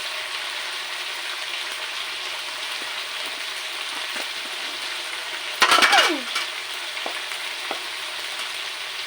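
Chicken pieces with onion and ground spices sizzling steadily in hot oil, stirred in a pan at the kosha (bhuna) stage of a chicken curry. About six seconds in comes a brief, loud clatter with a short falling squeal, the loudest thing heard.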